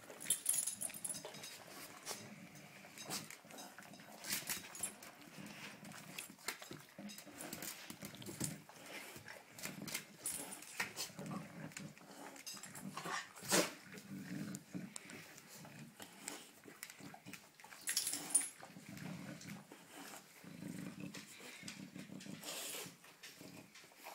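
A dog growling low in short spells, mixed with scuffling and sharp clicks on a tile floor; a few louder sharp sounds stand out, the loudest about halfway through.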